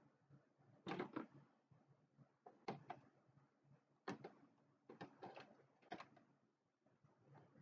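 A scattering of faint clicks and knocks, about six or seven, spaced a second or so apart: plastic and metal headlight parts being handled and worked loose.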